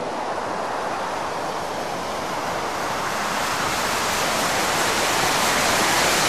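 A steady rushing noise with no pitch, slowly growing louder.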